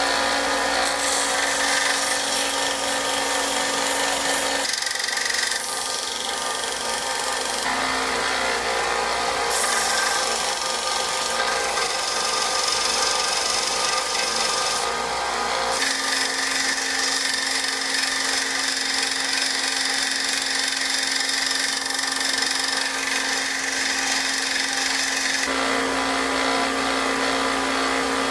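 A 1x30 belt sander running while a high-speed steel lathe tool bit is ground against its belt, together with a shop vacuum running. The sound is loud and steady, with a constant hum, and shifts abruptly in character a few times.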